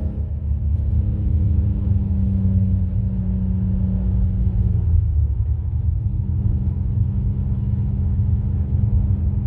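Infiniti G35 coupe's V6 running through ISR resonated test pipes, a steady low exhaust drone at constant throttle; its pitch steps down slightly about halfway through.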